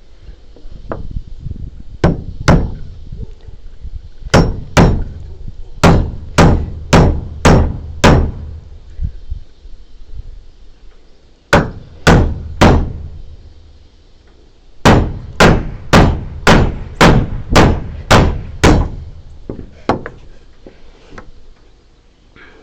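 Hand hammer striking the timber of a wooden wall frame: runs of sharp blows, two, then two, then six, then three, then about ten in quick steady succession, with short pauses between the runs.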